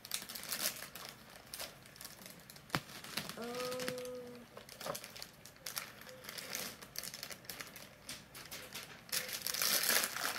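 Foil blind bag of a Funko Mystery Mini figure being crinkled and torn open by hand, with the loudest crinkling near the end.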